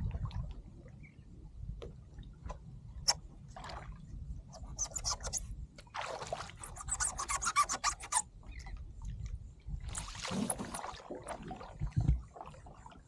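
Water sloshing and splashing around a person wading waist-deep and pushing a floating efoil board, with scattered small splashes and two longer bursts of splashing, about halfway through and again near the end.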